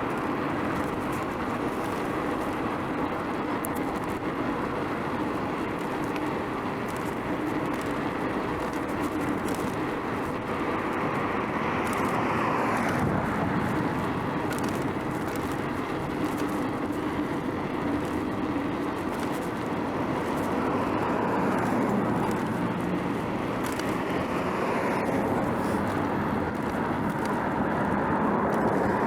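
Road noise heard from a moving bicycle: a steady rush of tyre and wind noise with motor traffic, swelling louder as vehicles pass about twelve seconds in, again a little past twenty seconds, and near the end.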